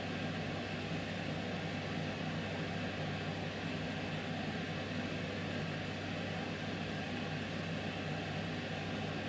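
Steady background hiss with a low hum underneath, unchanging throughout, with no distinct sound events.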